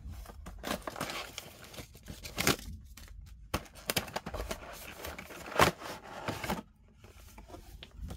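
Packaging crinkling, rustling and tearing as an action figure is unpacked by hand, with irregular sharp clicks; the loudest crackle comes a little past halfway.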